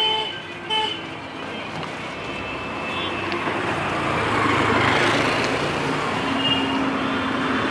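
Road traffic going past, swelling louder around the middle and then holding steady, with a brief beep about a second in.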